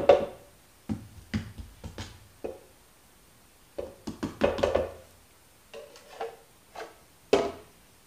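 Samsung Powerbot R7040's plastic dustbin and filter being knocked and tapped down on paper over a hardwood floor to empty out test powder: about a dozen irregular sharp taps, the loudest at the start and about seven seconds in.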